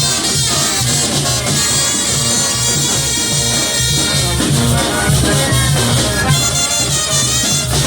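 Mexican banda de viento playing a huapango medley: brass melody over a steady bass and drum beat.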